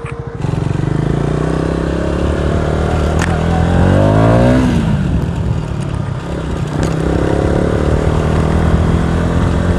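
KTM Duke 250's single-cylinder engine running through an exhaust with its dB killer removed, pulling away and accelerating. The pitch climbs to a peak about four and a half seconds in, drops sharply, then climbs again in the second half.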